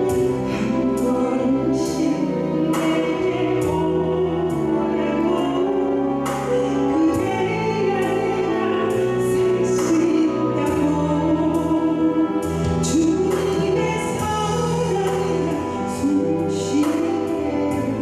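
A woman sings a Korean praise song into a handheld microphone over instrumental backing music with a steady beat.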